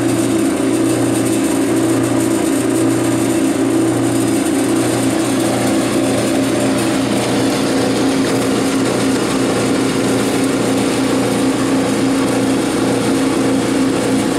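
Motor of a Clausing 5914 lathe converted to CNC running a test program, giving a loud, steady hum that stays unchanged throughout.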